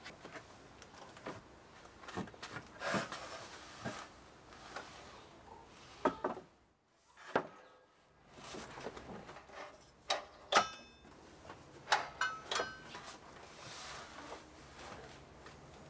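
Wooden knocks, bumps and clicks as a homemade pine table is lifted, tipped on edge and fitted to a hinged wooden board, with the boards knocking on a wooden floor deck. The sharpest knocks and clicks come about halfway through and again a little later.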